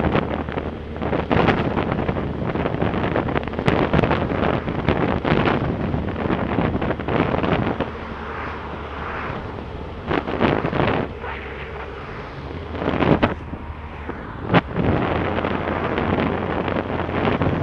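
Wind buffeting the microphone over a motorcycle engine running while riding along a road. The wind noise drops off twice, around eight and again around twelve seconds in, and there are a few sharp knocks, the loudest near the end.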